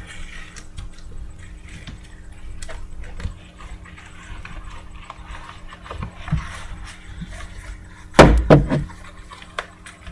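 Trading-card packaging and cards being handled and rustled, with small clicks, and a loud thump about eight seconds in.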